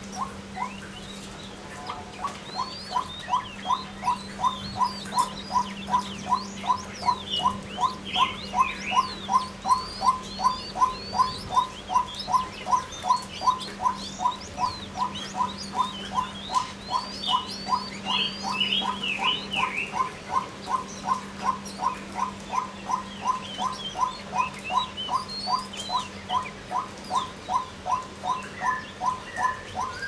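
Female white-breasted waterhen calling a long, monotonous series of short single notes, about two and a half a second, starting a second or two in. A steady low hum and chirps of small birds run behind.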